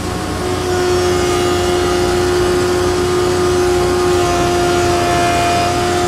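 16-inch jointer running with its cutterhead planing a wide walnut slab as it is pushed across the tables: a steady whine over a hum that grows louder about half a second in, as the cut takes hold.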